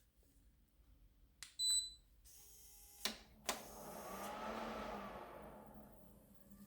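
A computer being switched on by a SwitchBot Bot pressing its power button. There is a click and a short high beep, then more clicks and a fan-like whoosh that swells and fades over about three seconds.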